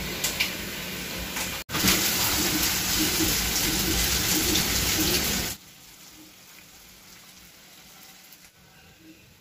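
Water being scooped from a tub with a plate and poured off the settled wheat starch, a steady splashing that grows louder after a brief break and stops abruptly a little past halfway, leaving only faint room sound.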